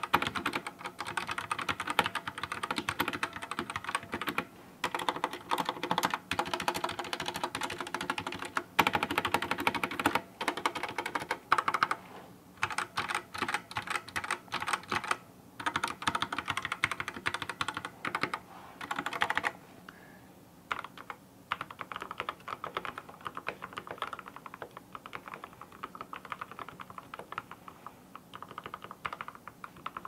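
Fast typing on a budget 60% mechanical keyboard in stock form: a dense clatter of keystrokes. About two-thirds through, the typing turns quieter and sparser, likely the same board after the build, with case foam and XDA-profile keycaps.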